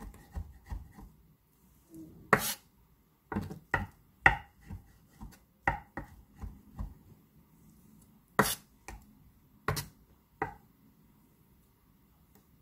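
Kitchen knife mincing boiled egg whites on a wooden cutting board: irregular taps of the blade striking the wood, a few sharper knocks among lighter ones, with short pauses between.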